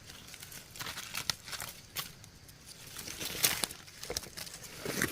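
Scattered rustling and short crackles of leaf litter and twigs as wild mushrooms are picked by hand from the forest floor.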